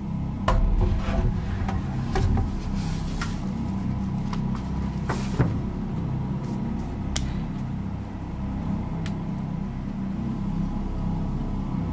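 A steady low rumble, with a few knocks and clicks over it; the sharpest knock comes about five seconds in.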